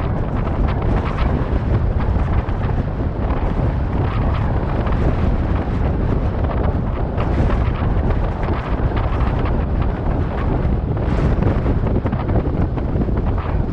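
Strong sea wind buffeting the microphone: a steady, heavy low-pitched rush of noise, with a few brief brighter swells of hiss.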